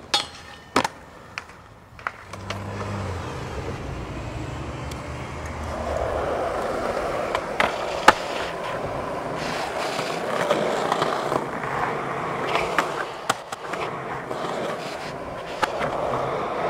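Skateboard wheels rolling over rough pavement, with sharp clacks of the board popping and landing at several points, the loudest about eight seconds in.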